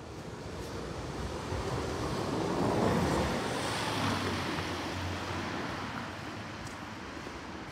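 A car passing close by on the street: tyre and engine noise builds to a peak about three seconds in, then fades as it drives away.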